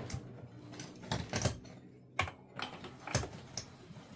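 Light metal clicks and knocks at uneven intervals as a Myford lathe's compound slide is handled and fitted back onto the cross slide.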